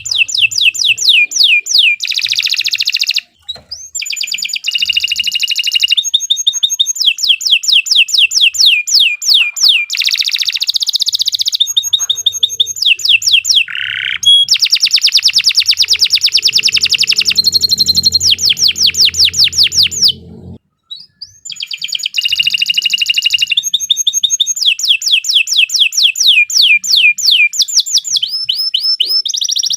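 Domestic canary singing a long song of fast trills, runs of rapidly repeated high whistled notes that change speed and pitch from phrase to phrase, broken by two short pauses.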